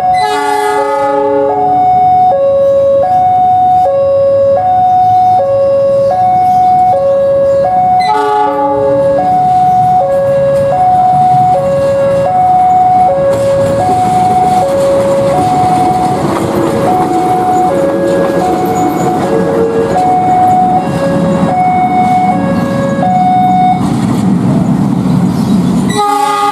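A level-crossing warning alarm sounding a steady alternating two-note ding-dong, stopping about 23 seconds in. A diesel locomotive's horn gives short blasts at the start and about 8 seconds in, and again just before the end, and the locomotive's engine grows louder through the second half as it moves off.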